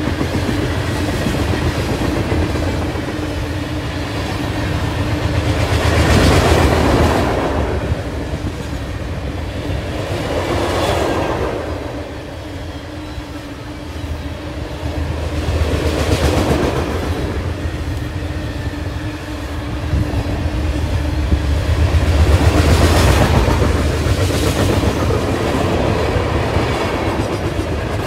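BNSF freight train's open-top hopper cars rolling past close by: a steady rumble and clatter of steel wheels on rail, swelling and easing every few seconds.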